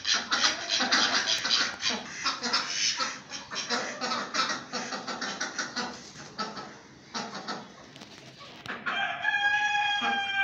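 Chickens clucking in a small flock, then near the end a rooster crows, ending on one long held note that falls slightly as it fades.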